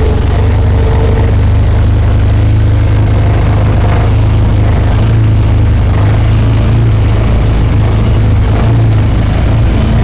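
Can-Am Commander 1000 XT side-by-side's V-twin engine running with a steady low drone, heard from the cockpit.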